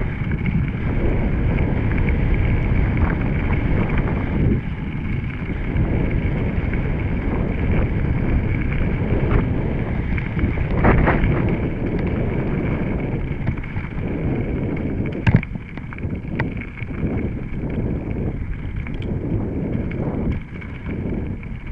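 Mountain bike being ridden on a dirt trail: wind buffets the microphone while the tyres run over the ground and the bike rattles and clicks over bumps, with a sharp knock about fifteen seconds in.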